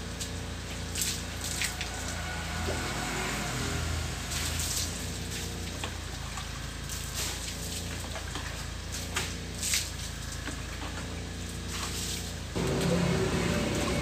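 Water thrown from a plastic dipper splashing over a scooter and onto wet concrete, several separate splashes over a steady wash of running and dripping water. Near the end a louder low hum comes in.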